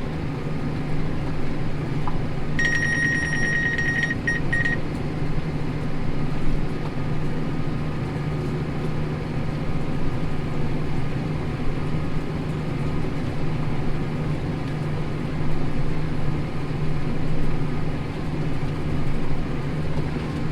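Tractor engine running steadily under ploughing load, a constant low drone. A few seconds in, an electronic beep sounds in rapid pulses for about two seconds.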